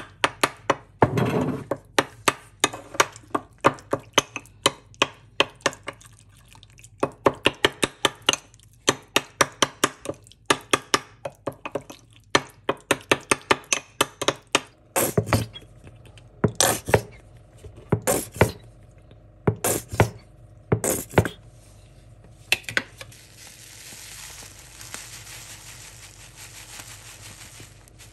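Metal spoon clinking and scraping against a small glass bowl as thick mayonnaise sauce is stirred, about three quick taps a second with brief pauses. Later come five louder separate sounds about a second and a half apart, then a steady hiss near the end.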